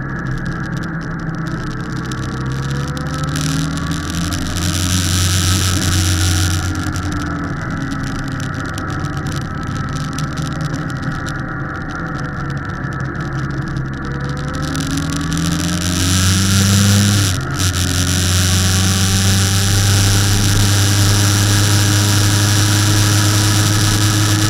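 Motorcycle engine running through a series of bends, its note falling and rising as it slows and pulls away again, then holding a strong steady pull in the last third. Wind rushes over the microphone, swelling as speed builds. The sound dips briefly about seventeen seconds in.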